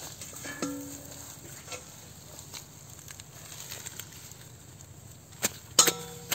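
Grass and weeds rustling and crackling as they are pulled up by hand, with a stainless-steel bowl ringing briefly when set down about half a second in. Two loud, sharp knocks come near the end, the second leaving a short metallic ring.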